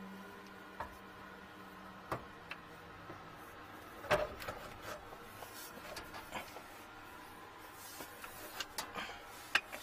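Faint low hum fading out about a second in, then scattered clicks and light knocks, the loudest about four seconds in and several more near the end.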